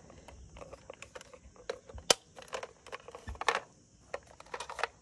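Hard plastic toy fire-truck parts clicking and knocking as they are handled, with one sharp click about two seconds in and a few more near three and a half seconds.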